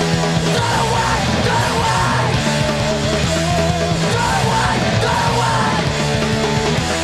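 Fast hardcore punk music played loud and without a break: distorted electric guitars, bass and drums, with shouted vocals.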